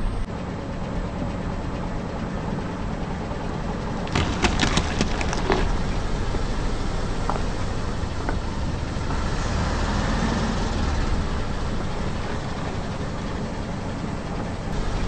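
A car engine running low and steady as a tyre rolls onto two raw potatoes; a short burst of crunching and cracking about four to five and a half seconds in as they split under the weight, then a few faint ticks.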